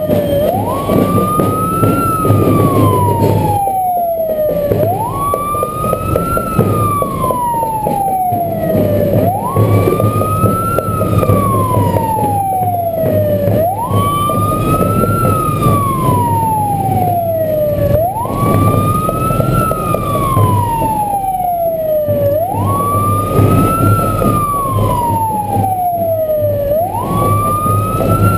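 A vehicle siren wails in a repeating cycle about every four and a half seconds: the pitch jumps up, climbs a little, then slides slowly down. Engine and road noise run steadily underneath.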